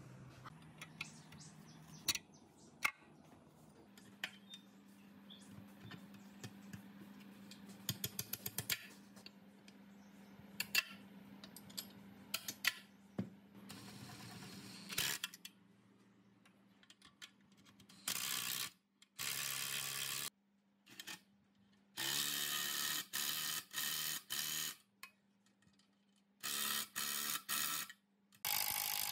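Power driver with a socket running nuts down onto a vibrator motor's mounting bolts in repeated bursts of a second or two, starting and stopping sharply, most of them in the last ten seconds. Before that, scattered light metal clicks and knocks.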